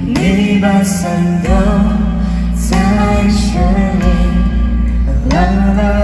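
Live band music through outdoor PA speakers: a lead singer over electric guitars, keyboard and a steady bass line.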